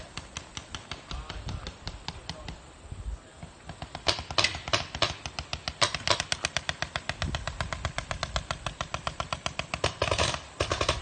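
Paintball markers firing in quick strings of pops, scattered at first, then a dense rapid volley from about four seconds in.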